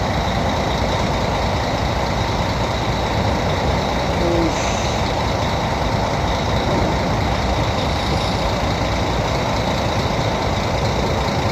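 Steady, loud rumble and rush of a car ferry under way in choppy sea, the ship's engine noise mixed with wind and waves.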